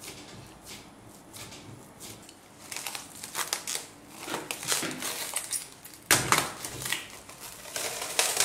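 Plastic cling film pulled from its roll and stretched over a glass bowl, crinkling and crackling, with a sharp sudden crackle about two-thirds of the way through and another near the end. Soft squishing of hands kneading dough comes before it.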